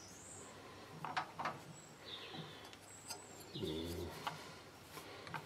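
Light metallic clicks and taps as a steel disc is handled and nudged into place in a lathe chuck. A brief low hum comes a little past halfway, and there are faint high chirps.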